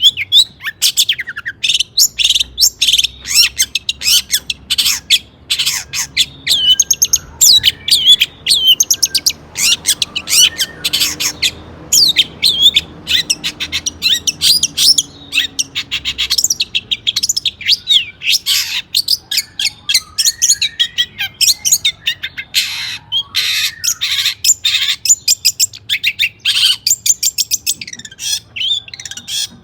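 Long-tailed shrike singing without pause: a rapid, varied stream of short, sharp, high chattering and whistled notes, several to the second.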